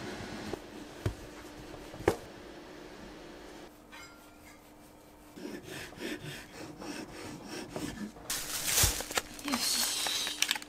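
Hands handling a sponge cake and slicer guide on a wooden board: rubbing and light knocks, with one sharp knock about two seconds in. Near the end, a loud rustle of the cardboard chocolate box being handled.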